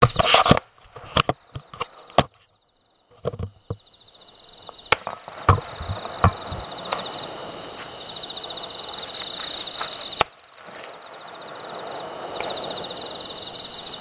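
Aerial fireworks going off at a distance: a quick run of sharp bangs and pops in the first couple of seconds and a few more a little later, then a long crackling hiss as the shells' stars burst and burn out. Under it is a steady high chirping of insects.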